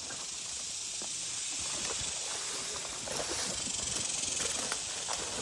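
Steady high-pitched hiss of insects calling in summer grass and weeds, with a few light rustles and ticks of steps through the tall growth.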